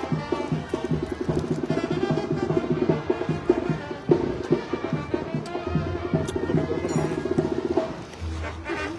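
Live Sinaloan banda music, led by a fast, even percussion rhythm.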